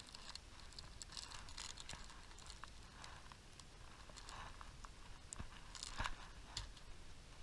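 Plastic bag of soft-plastic fishing baits crinkling and rustling as it is handled, with scattered small clicks; the loudest crackle comes about six seconds in.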